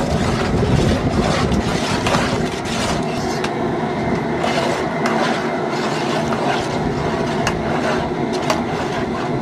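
Long stainless steel paddle stirring okra and diced tomatoes in a large outdoor stockpot, scraping and knocking irregularly against the pot, over the steady rush of the propane burner heating it.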